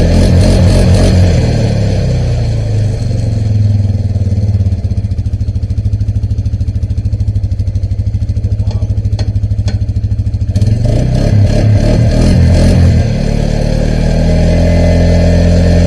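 A loud engine running, dropping to a steady lower speed after the first couple of seconds and revving up again for a few seconds about two-thirds of the way through.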